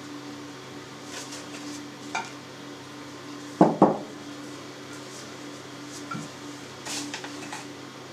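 Glass baking dish knocking twice on the table, a quarter second apart, about three and a half seconds in, while dough is moved into it. Softer clicks and rustles of hands working floured dough in the glass come around it, over a low steady hum.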